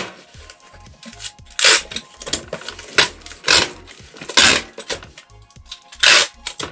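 Packing tape being pulled off a handheld tape-gun dispenser and pressed onto a small cardboard box, in about five short, loud, rasping pulls.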